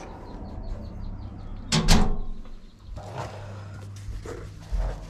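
Handling noises: a sharp knock or bang about two seconds in and lighter knocks later, over a steady low hum.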